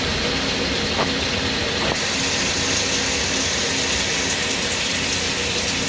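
Swiss-type CNC lathe running its machining cycle: a steady machine hum under a hiss of coolant spray. The hiss grows louder about two seconds in, then drops back a couple of seconds later.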